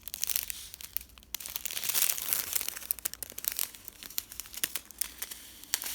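Crinkly plastic packaging being handled, with irregular crackling and rustling.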